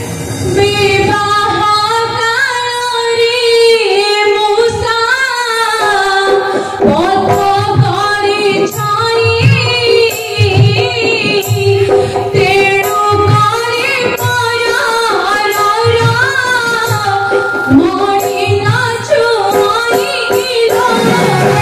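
Odia Ramanataka stage music: a high voice singing a melody over a steady held drone note, with drum strokes underneath.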